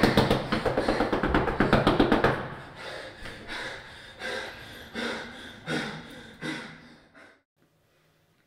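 Rapid, loud pounding with the flat of a hand on a door, easing after about two seconds into a few weaker, slower knocks that stop about seven seconds in.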